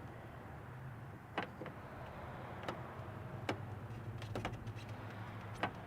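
A handful of sharp, separate clicks and taps as the hard plastic bug guard is handled and pressed into place along the Jeep hood's edge, over a steady low hum.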